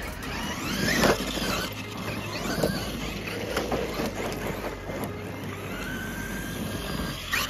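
Electric RC monster trucks' motors whining, the pitch rising and falling several times as the trucks speed up and slow down.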